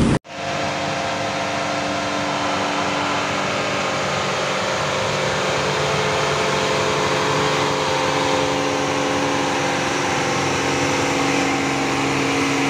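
Diesel engine of a Mercedes-Benz 'Bagong' tow truck labouring up a steep climb while towing a broken-down truck, a steady drone at constant revs.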